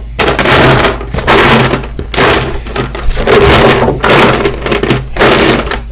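Small plastic toy animals clattering and rattling as hands rummage through a big bucket of them, in a series of bursts about a second long with short pauses between.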